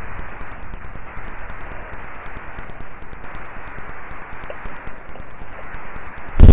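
Steady static hiss from a simple home computer microphone recording, with faint scattered clicks; this is the unexplained noise the recording turned up. A much louder sound cuts in abruptly near the end.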